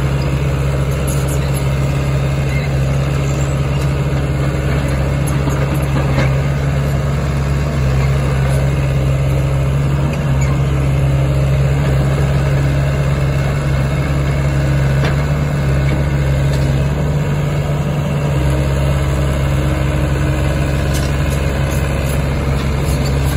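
SANY SY75C-9 crawler excavator's diesel engine running steadily with a low, even hum while the hydraulics work the boom and bucket.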